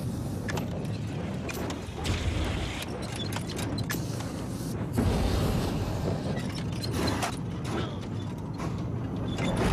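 Metal mechanism clicking and creaking over a low rumble.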